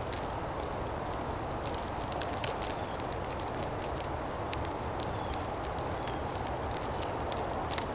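Steady wind through the woods during a snowstorm, with many tiny, irregular ticks of icy snow striking leaves and branches.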